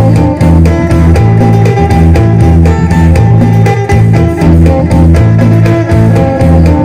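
Electric guitar played in Isan phin-sing style: a fast, continuously picked melody over steady sustained low notes that act as a drone.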